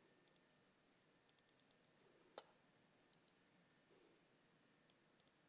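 Faint computer mouse clicks, mostly in quick pairs like double-clicks, with one louder tap about two and a half seconds in.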